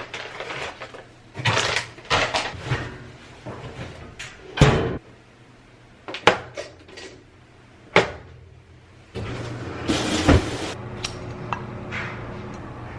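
Kitchen cupboard doors and dishes being handled: a series of separate knocks and clicks, the loudest about a third of the way in, with a rustling stretch near the end.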